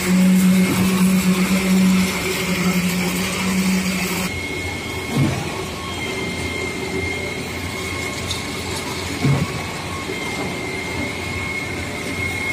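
Sany 47-metre truck-mounted concrete pump running during a concrete pour: a steady hum that changes abruptly about four seconds in to a steady high whine, with a low thump about every four seconds.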